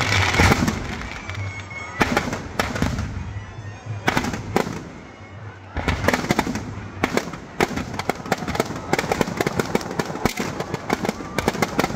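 Firecrackers inside a burning Ravana effigy going off: a few separate sharp bangs at first, then from about six seconds in a rapid, dense crackle of many small explosions.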